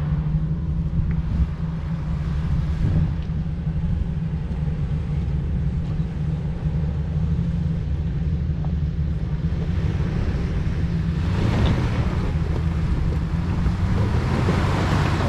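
Off-road vehicle's engine running with a steady low drone as it climbs a rocky slope, getting louder from about eleven seconds in as it comes up the grade.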